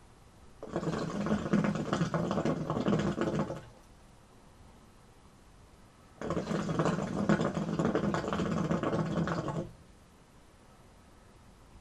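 Hookah water bubbling as two long pulls are drawn through the hose, each lasting about three seconds with a quiet pause between them.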